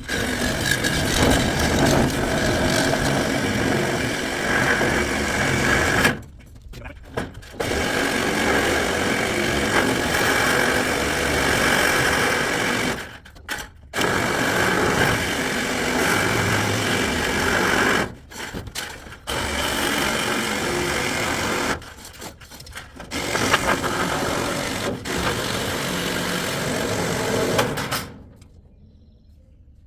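A power tool cutting a metal roofing panel, in about five runs of several seconds each with short pauses between them. It stops shortly before the end.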